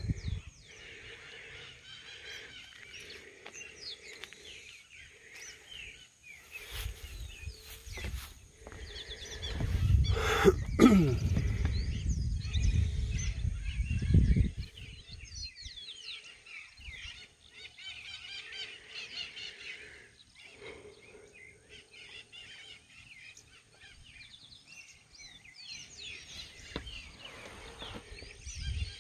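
Many small birds chirping and calling together without a break. A loud low rumble comes in about seven seconds in and stops suddenly at about fourteen seconds.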